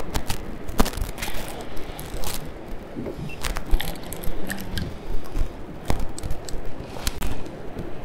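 A fishing reel being cranked against a fish on a hard-bent rod: irregular sharp clicks and knocks over a steady wash of wind and water.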